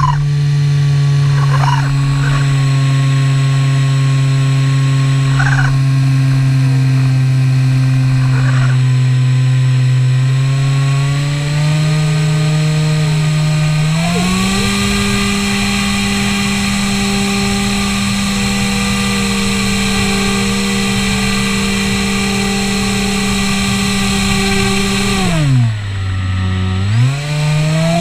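Skywalker 1900mm RC plane's electric motor and propeller buzzing steadily. The pitch climbs as the throttle is opened about halfway through, then drops sharply near the end and comes straight back up.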